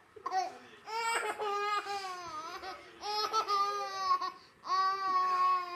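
Baby laughing and squealing in high-pitched bouts, about four of them, the last a long held squeal near the end.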